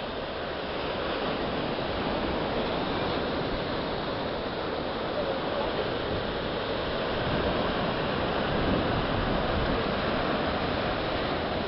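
Steady rushing noise of sea waves breaking on the shore.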